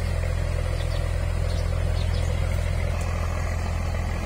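Steady low machine hum, like an engine or motor running at an even idle.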